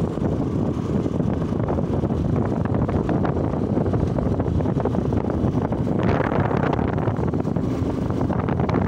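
Wind buffeting the phone's microphone on a moving motorcycle, over a steady rumble of engine and road noise. The noise turns hissier about six seconds in.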